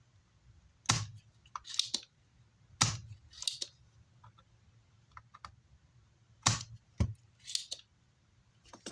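Three sharp clicks, each followed about a second later by a short hiss, from desoldering work on an amplifier circuit board, with a few faint ticks between them.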